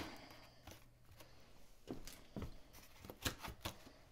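Faint rustling and a few soft taps of cardboard and foam packaging being handled, mostly in the second half.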